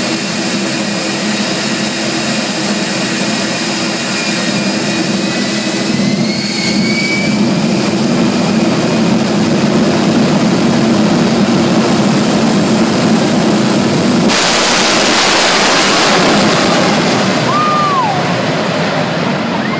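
Jet truck's jet engine running with a high whine, which rises in pitch about six seconds in. About fourteen seconds in it jumps suddenly to a far louder rush of noise as the truck launches at full power down the drag strip, easing off near the end.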